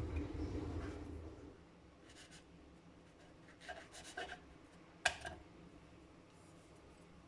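Objects being handled: a low rubbing noise that fades out after about a second and a half, then a few light knocks and one sharp click about five seconds in.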